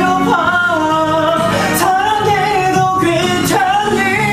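A young man singing live over an instrumental backing track, holding long notes that waver slightly in pitch, with a short break near the end before the next phrase.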